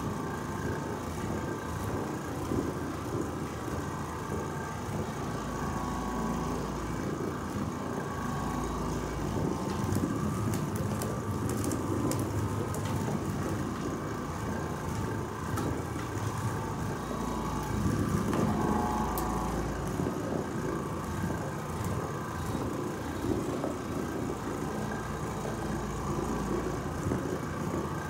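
Oreck Orbiter orbital floor machine running steadily, its pad scrubbing ice-melt salt out of carpeted stair treads.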